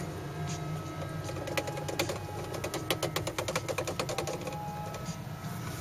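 Inside the cabin of a slow-moving small electric car: a steady low hum with many irregular light clicks and rattles, several a second at times.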